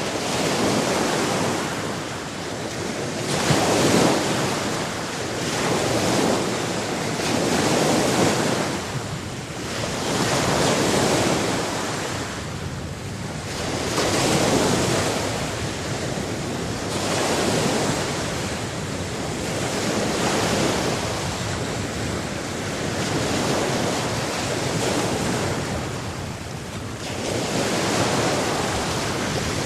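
Sea surf: waves washing in and drawing back in surges that swell and fade roughly every two seconds.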